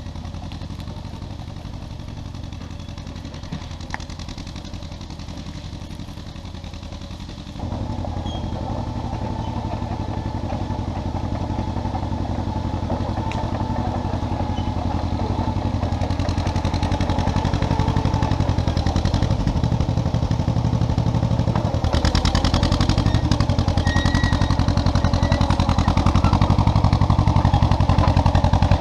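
1957 John Deere 420 crawler bulldozer's two-cylinder gasoline engine running with a steady firing beat. It jumps louder about seven and a half seconds in and keeps getting louder after that.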